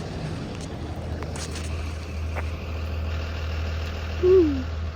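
2020 Blue Bird Vision school bus engine running with a steady low hum. About four seconds in, a short falling tone rises briefly above it.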